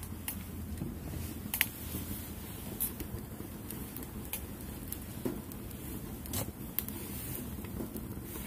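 Wood fire crackling in a small titanium wood stove: scattered sharp pops about once a second over a low steady rumble, the loudest about a second and a half in.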